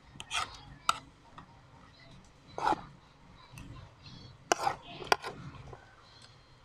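Eating sounds: a metal spoon clicking and scraping against a ceramic plate, with chewing and mouth noises, in a few separate bursts.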